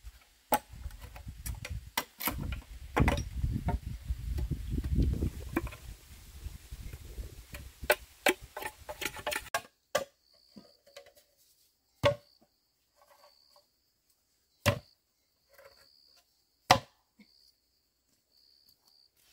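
Irregular sharp knocks like chopping strikes. They come thick and fast, over a low rumble, for about the first half. After that come a few single loud strikes spaced a couple of seconds apart.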